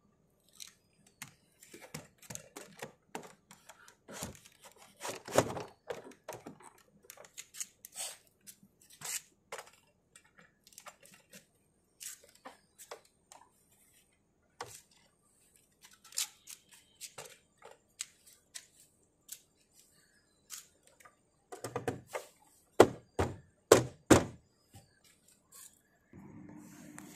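Audi A4 B8 rear door trim panel being pressed back onto the door: scattered plastic clicks and knocks as it is handled and its retaining clips go in, with a quick run of louder thunks near the end as the panel is pushed home.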